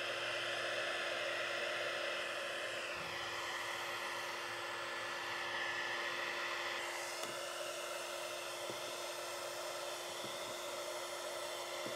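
Handheld electric heat gun running steadily, its fan blowing hot air onto the edge of paint protection film to soften it for tucking. A constant hum with a whine that shifts slightly in pitch about three seconds in and again about seven seconds in.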